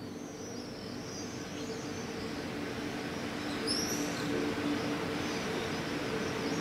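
Early-morning town ambience: many small birds chirping in quick, high twitters, with one louder downward-sweeping call about four seconds in, over a steady low mechanical hum and the hiss of distant traffic.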